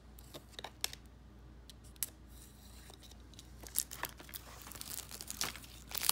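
Cellophane shrink wrap on a Blu-ray case being slit with a utility knife and then peeled, first with scattered sharp clicks and scratches, then crinkling that grows busier and louder from about four seconds in.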